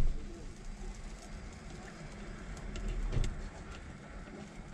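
A knife scraping and tapping around the edge of a thin pancake in a nonstick frying pan on an induction cooktop, with a sharp thump right at the start and a low rumble of the pan being handled about three seconds in.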